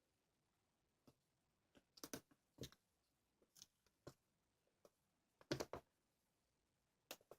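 Small, sharp clicks and taps at irregular intervals over a near-silent background, a handful of them bunched together about two seconds in and again, loudest, about five and a half seconds in.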